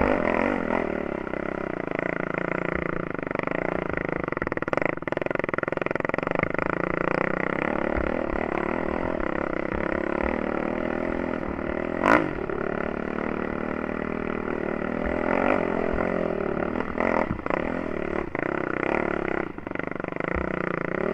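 Yamaha YFZ 450 quad's single-cylinder four-stroke engine running under load on a dirt trail, its pitch rising and falling gently with the throttle. A sharp knock about halfway through.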